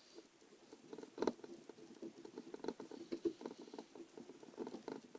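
Small hand screwdriver driving a motherboard screw into the laptop's plastic chassis: a faint, rapid run of small clicks and scrapes as the bit turns in the screw head.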